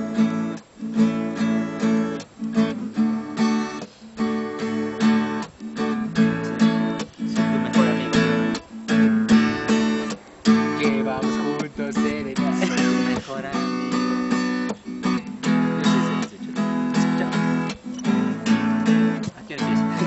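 Acoustic guitar strummed in a steady rhythm, playing chords.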